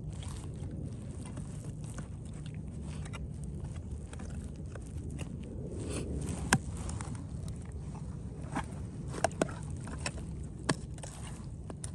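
Canvas jacket rustling and rubbing right at the phone's microphone, with a steady low rumble, as a man works on a burst water pipe. A handful of sharp clicks and taps come from about halfway through, the loudest one single and sudden.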